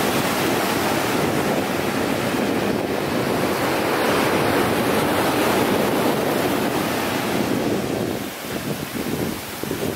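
Surf breaking and washing up a sandy beach, with wind on the microphone. The wash eases briefly about eight seconds in.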